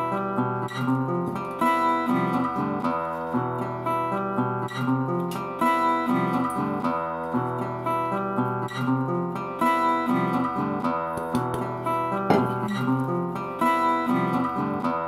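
Background music: a plucked acoustic guitar tune playing steadily.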